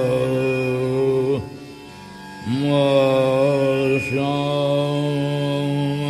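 Dhrupad alap in raga Malkauns: a male voice sings long held notes, sliding up into each one, over a steady drone. One phrase ends about a second and a half in, and a new one starts about a second later, with a brief break in the middle.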